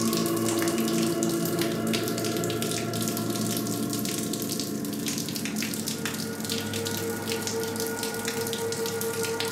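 Running water spattering steadily, with many small splashes. Underneath runs a drone of held low tones, which changes about six seconds in.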